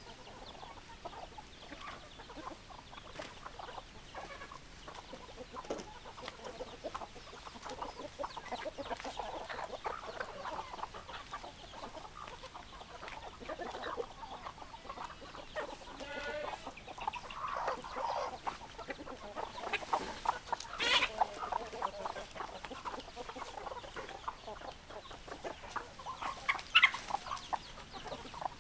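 A flock of hens clucking, many short calls overlapping throughout, with a couple of louder, higher-pitched squawks about two-thirds of the way in and near the end.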